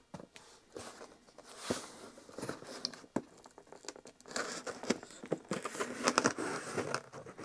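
Cardboard shipping box being opened and unpacked by hand: irregular rustling and crinkling of packaging, with scattered taps and knocks.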